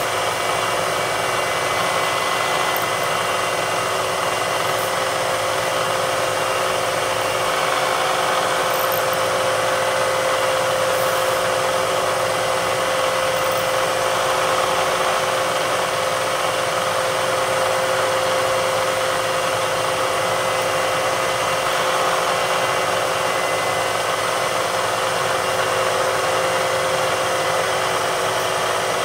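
Milling machine spindle running at 3,000 RPM while a drill bit feeds into aluminium plate at 9 inches a minute, drilling a hole: a steady machine sound with a few constant tones and no breaks.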